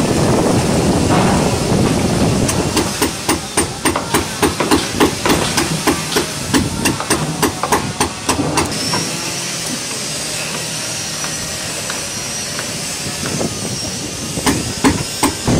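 Hammering: quick repeated blows, about three a second for some six seconds, then a pause and a few more blows near the end, over a steady background rumble.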